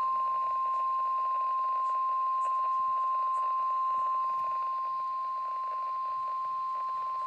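Emergency Alert System attention signal: a single steady high tone, the 1050 Hz National Weather Service warning alarm tone, held without a break over a faint hiss. It heralds a weather warning about to be read.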